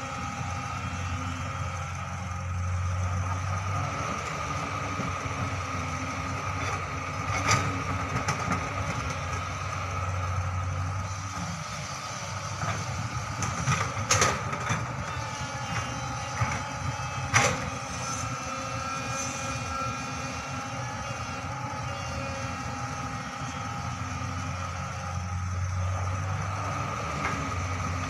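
Hydraulic excavator's diesel engine running steadily while digging and loading, its low note swelling every several seconds as the hydraulics take load. A few sharp knocks stand out, the loudest about 14 and 17 seconds in.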